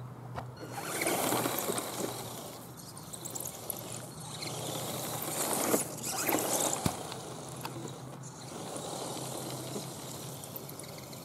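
Axial SCX10 scale RC truck driving across a wet lawn: its electric motor and geared drivetrain running while the tyres brush through the grass. It gets louder twice, about a second in and around six seconds in.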